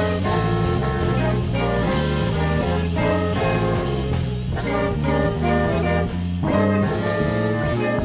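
Instrumental background music in a jazz style, with a steady beat.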